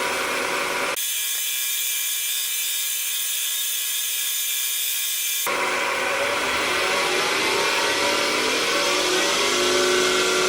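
Wood lathe motor running steadily at about 1100 RPM with a whirring whine; over the last few seconds its pitch rises as the speed is turned up toward 3200 RPM.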